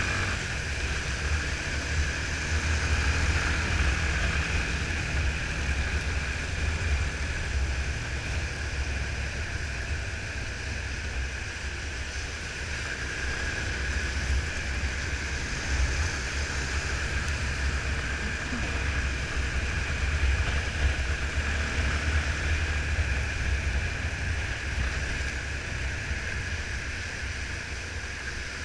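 Yamaha Fazer 250 single-cylinder motorcycle cruising on a wet road: a steady, muffled rumble of engine, wind and tyre hiss, heard through the camera's waterproof housing.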